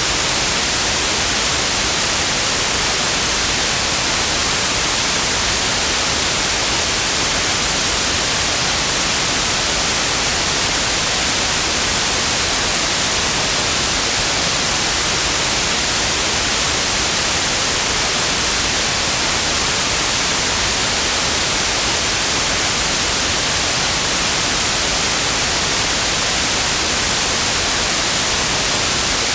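Steady white noise: an even, unchanging hiss strongest in the high frequencies, with no breaks or changes.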